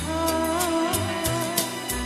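Live song with a woman's voice singing a held, wavering melodic line over electronic keyboard accompaniment, with a bass line and regular hi-hat ticks.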